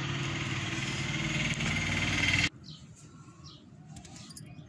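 A steady motor-like running noise that cuts off abruptly about two and a half seconds in, leaving faint outdoor background with a couple of short high chirps.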